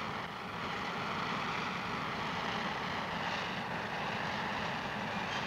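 Jet engines of a Boeing C-135 Stratolifter running: a steady, even rush of noise.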